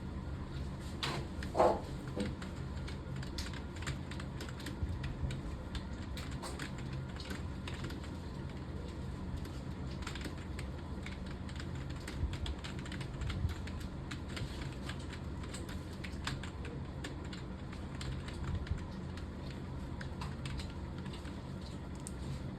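Typing on a computer keyboard: a steady stream of key clicks at an uneven pace, over a low steady hum, with one louder knock about one and a half seconds in.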